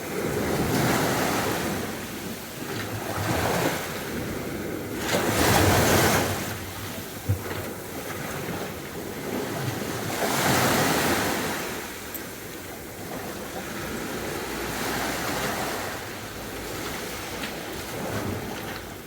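Sea waves breaking and washing up a beach, each surge swelling and fading every few seconds; the loudest comes about five to six seconds in. A single brief knock sounds about seven seconds in.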